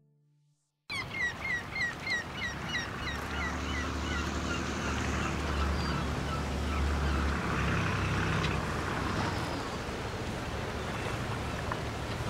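Gulls calling in a quick series of short, downward-hooked cries, starting abruptly about a second in and thinning out, over a steady wash of surf.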